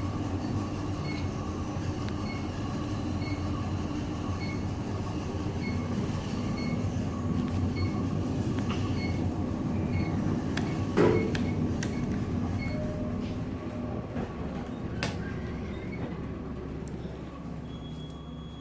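Elevator cab ventilation fan running with a steady rumble and a faint high chirp repeating about twice a second, the sound of a bad, failing fan, over the hum of the cab. A knock about two-thirds of the way through and a few clicks later.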